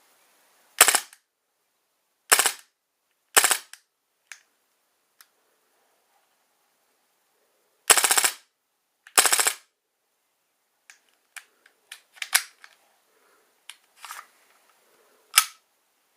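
KWA Beretta 93R gas blowback airsoft pistol firing in rapid strings of pops: three short bursts in the first few seconds, then two longer strings about halfway through. Lighter clicks and knocks follow, with one more loud shot near the end.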